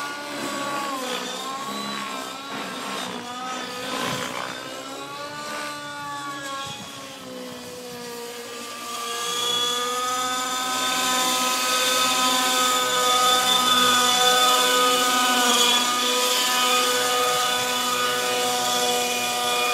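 Align T-Rex radio-controlled helicopter in flight, a continuous motor-and-rotor whine whose pitch rises and falls repeatedly for the first several seconds, then grows louder and holds a steadier high pitch from about nine seconds in.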